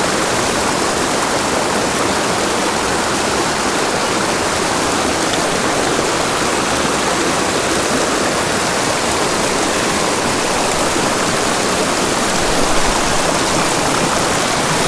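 Small headwater creek running fast over rocks and down little cascades: a steady, even rush of splashing water close by.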